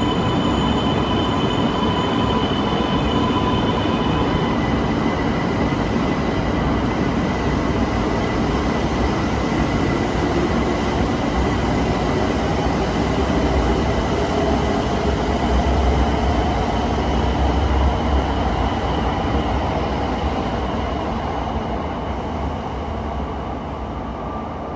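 Train running through a station: a continuous rumble with steady high squealing tones, loudest about two-thirds of the way through, then fading as it moves away.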